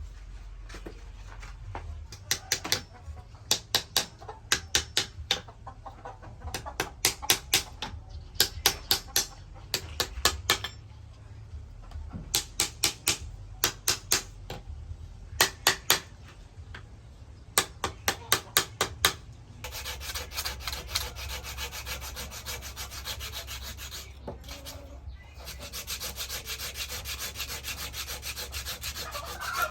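Metalworking on a knife blade: groups of quick, sharp strikes, three to six at a time with short pauses between, then from about twenty seconds in a steady, rapid scraping that goes on without a break.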